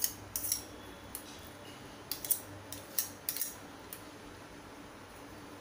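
Wire whisk and metal spoon clinking and scraping against a glass bowl while stirring thick mango pulp into strained yogurt: about a dozen irregular clinks over the first four seconds, then they stop.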